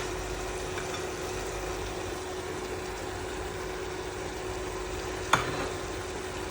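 Chicken, garlic and ginger in soya sauce with a little water sizzling steadily in a frying pan, under a steady hum. A single sharp clack, like a utensil knocking the pan, about five seconds in.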